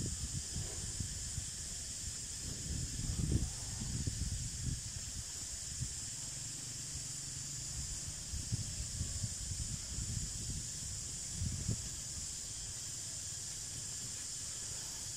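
Outdoor field ambience: a steady high-pitched hiss, with patches of low rumbling now and then.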